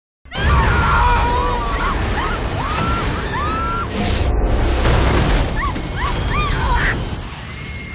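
Film sound of an aircraft cabin blown open in flight: a sudden blast, then rushing wind and debris noise with several people screaming over it. It eases off near the end.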